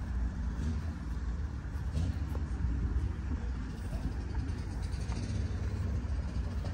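A car's engine running with a steady low rumble.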